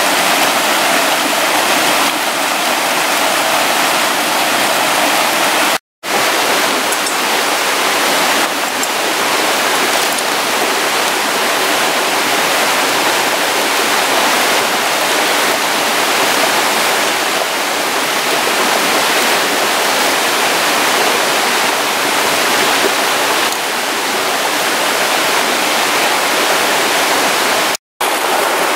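Steady rush of a fast stream running over rocks, with two very short breaks, about six seconds in and near the end.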